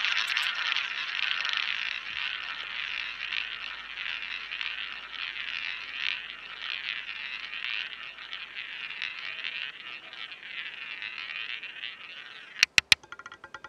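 Roulette ball rolling round the spinning wheel with a steady whirr that slowly fades as the ball slows. Near the end it drops: three sharp clacks, then a quick clatter of bounces among the pockets.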